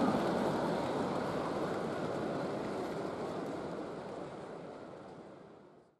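An OO gauge model freight train of tank wagons rolling over the track, a steady rumbling noise mixed with the background noise of an exhibition hall. It fades out over the last few seconds to silence.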